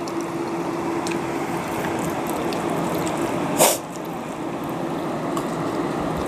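Soft eating sounds: rice and chicken being mixed by hand on a plate and eaten, with faint scattered clicks over a steady background hum. One brief, loud rush of noise about three and a half seconds in.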